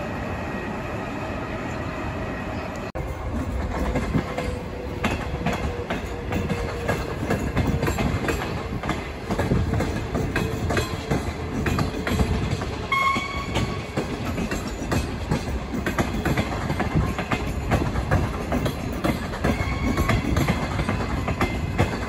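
Train running past on the rails, its wheels clicking over the rail joints in a quick, uneven patter that gets louder about three seconds in. A brief high tone sounds about two-thirds of the way through.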